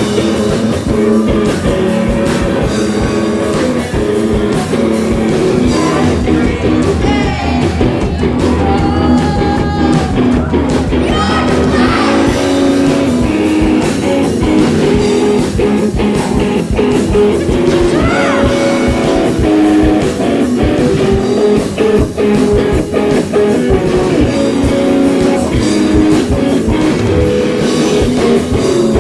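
Live rock band playing: electric guitars over a drum kit, with singing.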